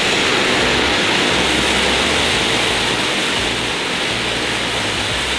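Anar (flower-pot fountain firework) burning, a steady loud hiss of its jet of sparks that eases slightly toward the end.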